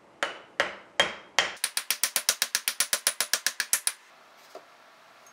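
Small hammer striking a Wilton Bullet vise's cast-iron body. There are four separate blows about a third of a second apart, then a quick run of about twenty lighter taps, roughly nine a second, each with a short metallic ring.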